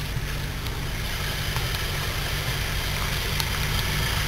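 A 4x4 off-road vehicle's engine idling steadily.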